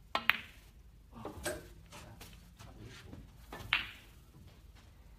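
Snooker shots: two sharp clicks just after the start, a cue tip striking the cue ball and then the cue ball hitting an object ball, a duller knock and rattle about a second and a half in, and another single sharp click near four seconds in.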